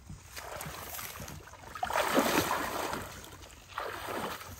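Muddy water sloshing and splashing around a person's legs as they wade through a shallow flooded ditch, in two surges, the louder about two seconds in.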